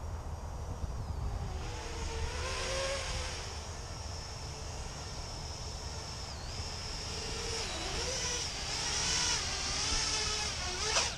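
The brushless motors and propellers of a small 3D-printed Birdbone Helium 210 FPV quadcopter in flight, a whine whose pitch wanders up and down as the throttle changes. Near the end the pitch swings sharply upward.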